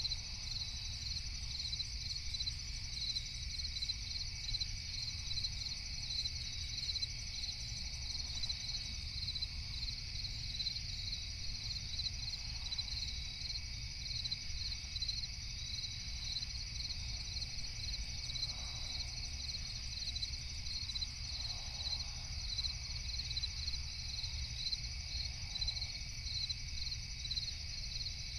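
Crickets chirping in a steady, continuous chorus with a regular pulse, over a low steady rumble.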